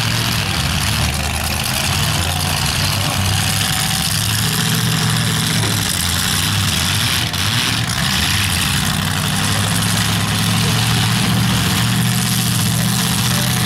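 Demolition derby trucks' engines running at idle, a steady low drone with a hiss of noise over it.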